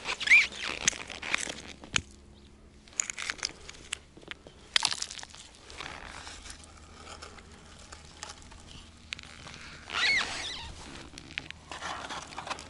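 Crunching and clinking of broken ice and gear as a winter fishing tip-up is handled and set back into a hole chipped in river ice, with scattered sharp clicks and a short squeak about ten seconds in.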